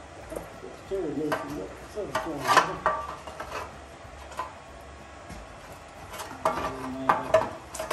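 Hand tools and metal tractor parts clinking and scraping in irregular bunches, about one to three seconds in and again near the end.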